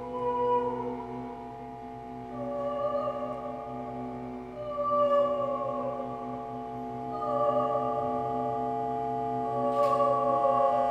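A woman singing long held notes in an operatic voice, about five in a row with short gaps between, over a steady, unchanging drone.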